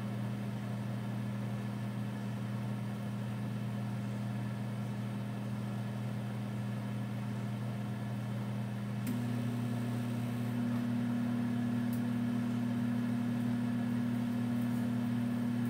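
GE over-the-range microwave oven running at power level 5, a steady low hum. About nine seconds in there is a click, then a slightly higher hum joins and it gets a little louder: the magnetron cycling back on, as it does at half power.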